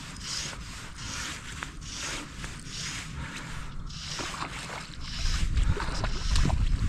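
Fly line being hand-retrieved, drawn in short pulls through the rod rings and fingers, giving a soft rhythmic swish about every half second to second. From about five seconds in, breeze buffets the microphone with a low rumble.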